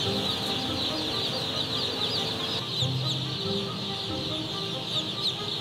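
A dense chorus of many baby chicks peeping at once, a steady crowd of quick high chirps, with a low music bed underneath.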